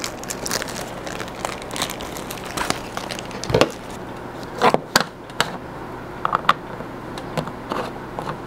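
Clear plastic packaging bag crinkling as it is handled, then scattered clicks and taps of plastic figure parts being handled and fitted together, with a few sharper knocks about halfway through.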